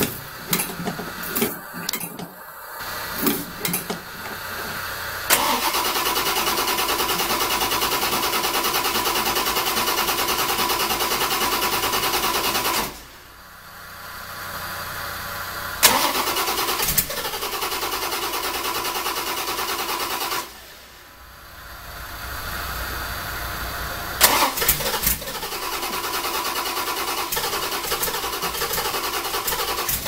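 The V8 of a 1965 TVR Griffith racecar being cranked over by its starter in three long attempts of about eight, five and five seconds, each ending abruptly, without settling into a run. A few sharp clicks come before the first attempt, and a click opens each later one.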